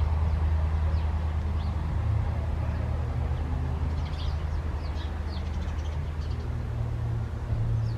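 A low, steady engine hum that slowly fades, with another low hum building near the end. Small birds chirp briefly over it.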